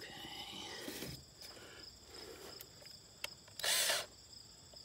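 Crickets chirping steadily in the background, with one short burst of noise about half a second long a little under four seconds in.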